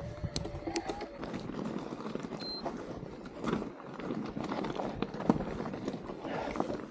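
Mountain bike rolling over a rocky, wet singletrack: a rapid clatter of knocks and rattles from tyres, chain and frame on stones, with a short high squeak about two and a half seconds in.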